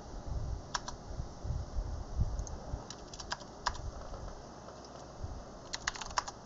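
Computer keyboard keys tapped in short, sparse runs: a click or two about a second in, a few keystrokes around three seconds, and a quick run of keystrokes near the end.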